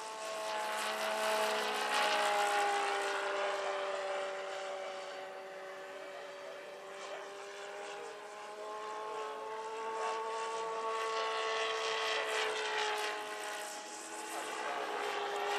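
Large electric scale model BO-105 helicopter in flight: a steady whine from its electric drive over the noise of its rotor blades. The whine wavers slightly in pitch and swells twice, near the start and again past the middle.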